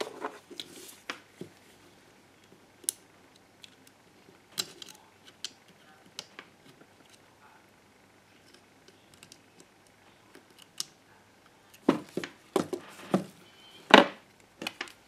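Scattered small clicks and taps as the plastic housing, circuit board and wires of an opened GHD hair straightener are handled on a workbench, with a cluster of louder knocks near the end as parts and tweezers are moved and set down.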